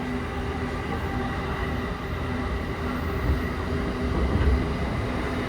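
Electric commuter train running along the track, heard from inside the car: a steady low rumble of wheels on rails with a steady motor hum over it.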